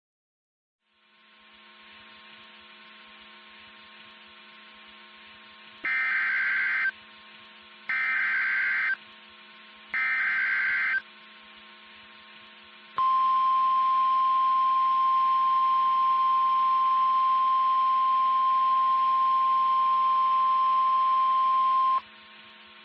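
NOAA Weather Radio alert signal over a steady radio hum. Three one-second bursts of the SAME digital header data come about two seconds apart, then the single 1050 Hz warning alarm tone sounds steadily for about nine seconds and cuts off. The tone is the signal that a warning message follows.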